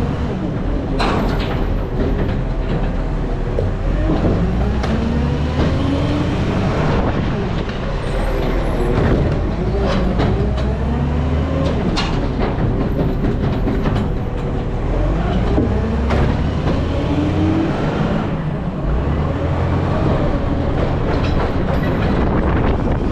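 Garbage truck's diesel engine running loudly while the truck drives, its pitch rising and falling over and over, with scattered knocks and rattles.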